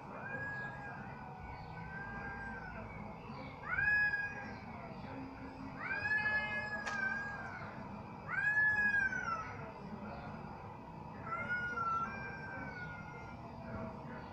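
Cat yowling: about five long, drawn-out calls that rise and then fall in pitch. The first is faint, and the loudest come about four and nine seconds in.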